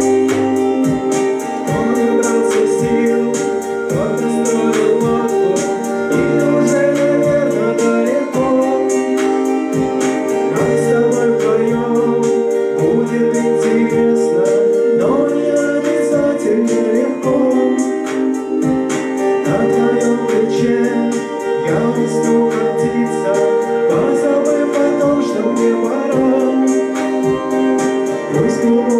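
A band playing live: a keyboard holds sustained chords under singing, with a steady percussive beat.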